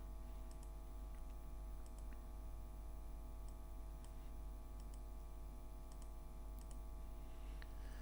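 Faint computer mouse clicks, about a dozen scattered irregularly, over a steady low electrical hum.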